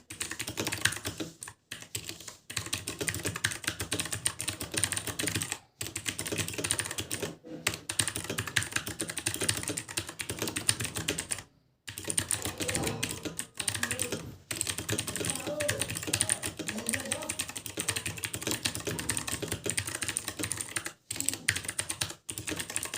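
Redragon Kumara mechanical keyboard with blue switches being typed on fast: a dense, very loud clatter of clicky keystrokes, broken by a few short pauses.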